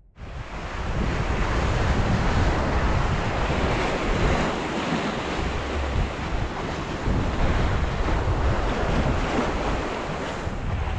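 Sea surf washing onto the beach, with wind buffeting the microphone in a steady low rumble.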